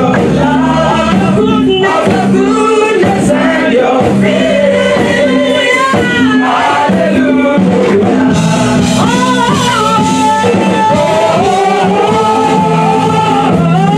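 Gospel choir singing in harmony behind a female lead vocalist, over steady low accompaniment notes.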